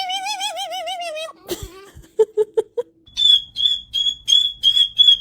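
A parrot vocalising: a long whistled note that wavers into a warble and breaks off, a few short low clucks, then a run of rapid high chirps, about three a second, over a steady high whistle.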